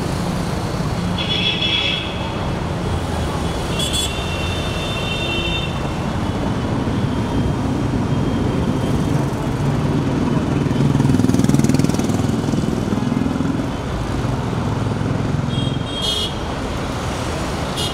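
Steady road traffic: cars, motorcycles and scooters passing, with short horn honks about a second in, around four seconds, and near the end. One vehicle passes louder midway.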